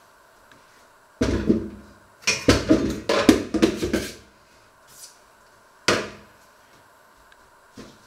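Kitchenware knocking and clattering in a stainless-steel sink: a single knock about a second in, a quick run of clattering knocks for about a second and a half, then one more knock near the end.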